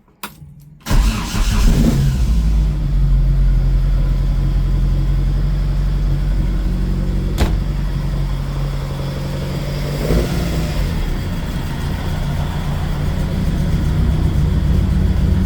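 Mk2 Ford Cortina's engine catching about a second in, then running steadily at idle, with a single sharp click midway and a small blip in revs about ten seconds in. It runs crisply, which the owner finds good for fuel that has sat in it over a year.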